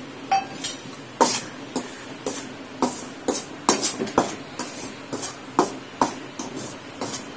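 Slotted metal ladle stirring rice flour in an aluminium kadai, scraping and knocking against the pan in irregular strokes about two a second, over a faint steady hum.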